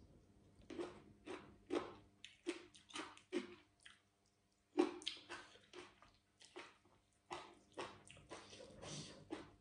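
Close-up chewing of spicy cucumber salad and raw vegetables: a run of short wet crunches, roughly two a second, with a short pause about four seconds in.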